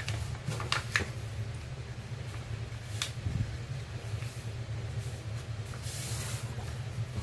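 Sheet of paper being folded and creased by hand: faint rustles, a few light taps and a short swish of paper sliding about six seconds in, over a steady low hum.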